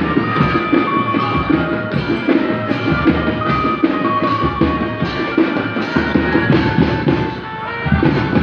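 Music with drums beating under a melody line, with a brief drop in level about seven seconds in.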